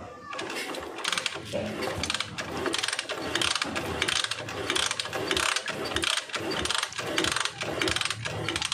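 Metal ratchet mechanism clicking rapidly, in repeated strokes of about two a second.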